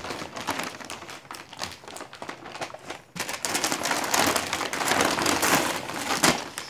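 Gift-wrapping paper crinkling and rustling as it is pressed and taped around a dog that moves beneath it. The rustling thins out briefly, then grows louder and busier after about three seconds.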